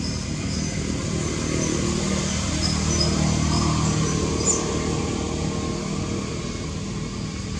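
A motor engine running steadily as a low hum, swelling a little about three to four seconds in, with a few short high chirps.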